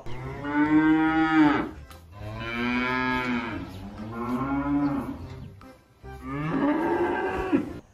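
Holstein cows mooing: about four long moos, one after another, each rising and falling in pitch.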